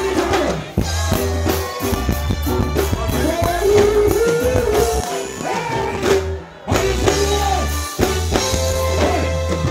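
Live reggae band (drum kit, bass, guitar and keyboards) playing with a male singer singing into a microphone. The music drops out briefly for about half a second a little past the middle, then comes back in.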